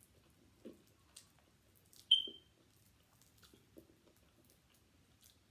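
Faint crackles and small wet clicks of crispy fried chicken being torn apart by hand and chewed. About two seconds in comes one sharp click with a brief high ringing tone, much the loudest sound.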